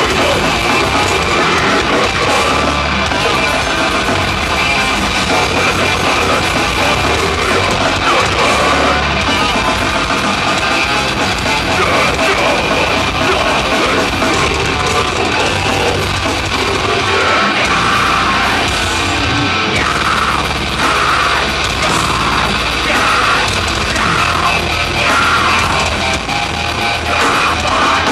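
Heavy metal band playing live, distorted guitars, bass and drums at full volume, with a vocalist yelling into the microphone.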